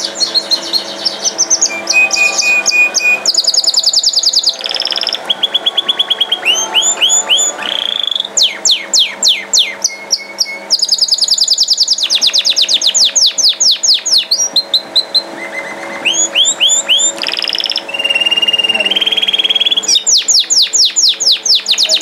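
Domestic canary singing a long, unbroken song of fast rolling trills, phrase after phrase at changing pitches, with a couple of held whistled notes.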